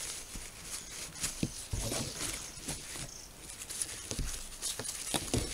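Paper tissue rustling and rubbing as the metal parts of a camping gas stove are wiped dry, with scattered small clicks and a few low knocks as the stove is handled.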